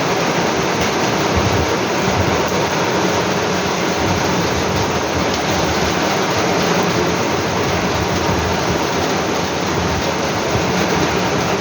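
Heavy rain pouring down in a thunderstorm, a loud, steady hiss of downpour.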